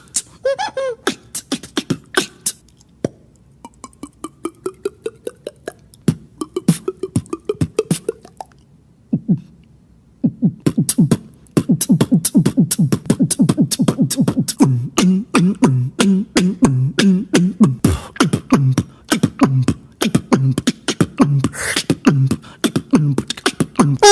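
Beatboxing: mouth-made clicks and percussive hits, with a quieter stretch where a pitched vocal tone slowly rises, then about halfway through a dense, fast beat over a low hummed bass line.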